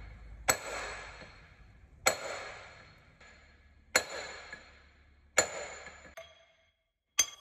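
Sharp strikes on steel gearbox parts, five of them roughly every one and a half seconds, each leaving a bell-like ring that fades away.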